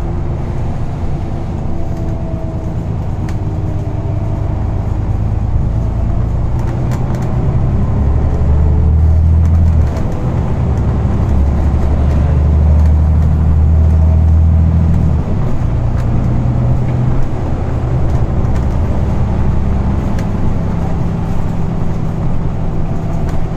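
Scania N94UB OmniCity bus's diesel engine droning deeply while it drives, heard inside the passenger cabin. The drone swells as the bus pulls harder about 8 seconds in and again about 11 seconds in, and drops back suddenly around 10 and 15 seconds in.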